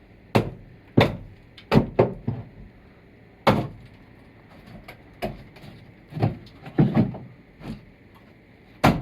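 A series of irregular knocks and thuds, about ten over nine seconds, unevenly spaced, each with a short ringing tail.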